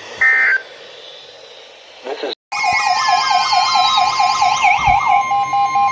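Emergency Alert System data tones: a short burst of end-of-message code just after the start closes the previous weather warning. About two and a half seconds in, a new alert sets off a loud warbling siren-like alarm that sweeps up and down about four times a second, over a steady attention tone near 1 kHz.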